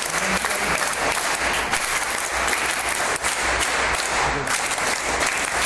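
An audience clapping steadily in applause.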